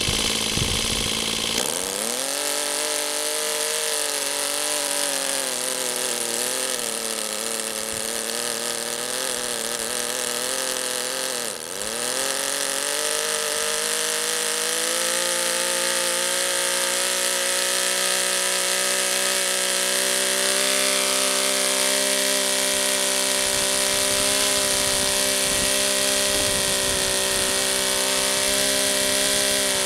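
Pip model radial glow engine running, freshly fitted with new glow plugs. The note picks up about a second and a half in and wavers in speed, sags sharply and recovers around twelve seconds in, then holds a steady, higher speed.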